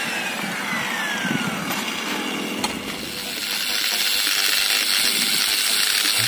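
A power tool's motor whine falls steadily as it winds down after switch-off, over a steady high hiss that continues after it has faded.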